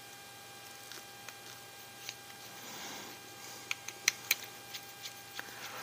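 Small RC crawler rear axle parts being handled and pulled apart by hand. Several sharp little clicks and taps come in the second half, over a faint steady electrical hum.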